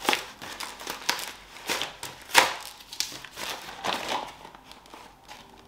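Packaging rustling and crinkling as a package is opened by hand, with irregular clicks and one louder click about two and a half seconds in.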